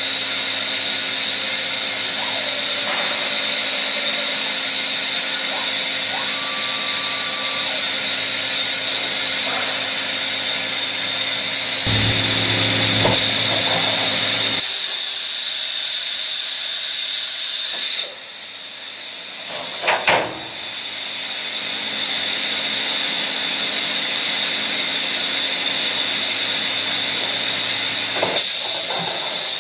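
Makino A71 horizontal machining center running: a steady hum with a constant high whine from its pumps and drives, louder for a few seconds about twelve seconds in. Partway through, the running noise drops suddenly and a couple of sharp mechanical clunks follow as the automatic tool changer pulls the tool from the spindle. A single click comes near the end.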